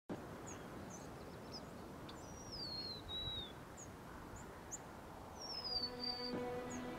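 Outdoor ambience with birds calling: a steady hiss under scattered short high chirps, and two longer whistled calls that slide downward, one about two and a half seconds in and one about five and a half seconds in. Music with long held notes fades in over the last two seconds.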